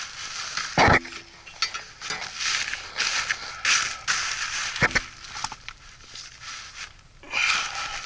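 Crinkling and rustling of the plastic outer jacket of insulated flexible ductwork as it is handled and pushed aside, coming and going unevenly, with two sharp knocks, one about a second in and one near five seconds.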